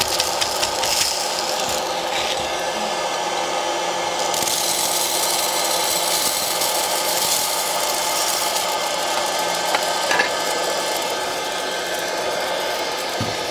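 Hot-air popcorn popper running: its fan blows steadily while the kernels rattle around in the chamber.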